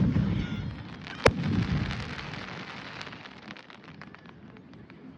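Fireworks going off: the low rumble of a bang at the start, a second sharp bang about a second in, then a shower of small crackles that fades away over the next few seconds.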